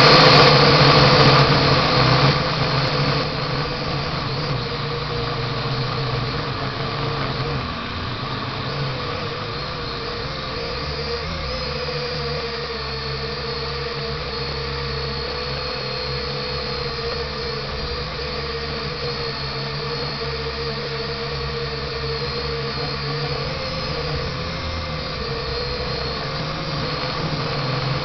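Quadcopter's electric motors and propellers whining, heard from on board, the pitch wavering as the throttle changes. Loudest in the first few seconds, then a steadier hum.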